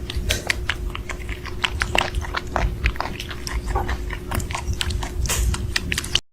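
A pet chewing noisily: rapid, irregular crunching clicks over a steady low hum, cut off abruptly near the end.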